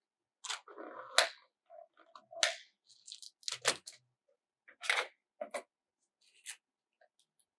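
Clicks and clatter of a clear plastic bead storage box being handled and slid across a table, with scissors set down on it: a string of separate sharp knocks, the loudest about a second in.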